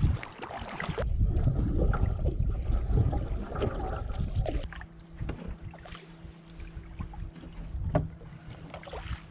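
Water swishing and splashing along the hull of a Wenonah Wilderness canoe as it is paddled, with some wind rumble on the microphone in the first half. About halfway in, the water sound drops and a faint steady low hum comes in.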